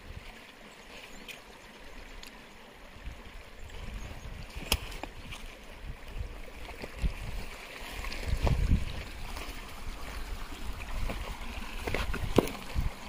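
A shallow rocky stream trickling and babbling over stones, with a few sharp knocks and low scraping rumbles as a large rock is shifted by hand, loudest about eight to nine seconds in.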